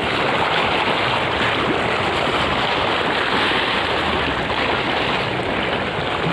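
Steady rushing noise of wind and choppy sea water, with no distinct splashes or knocks standing out.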